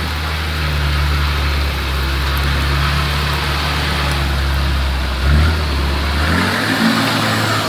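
Four-wheel-drive's engine running steadily at low revs. Its note changes about five seconds in, then rises to a higher pitch near the end, as the revs change.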